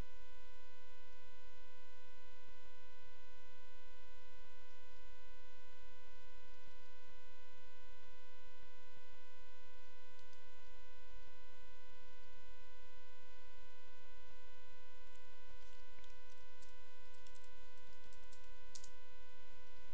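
Steady electrical hum and whine in the recording, with no speech over it. A few faint clicks come about halfway through, and a short run of keyboard clicks comes near the end.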